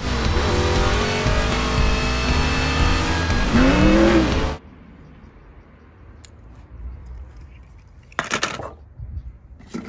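Race-car engines at speed from an animated film's race scene, loud and dense, with one engine's pitch rising then falling about four seconds in; the sound cuts off suddenly after about four and a half seconds. A low background follows, with a short burst of noise about eight seconds in.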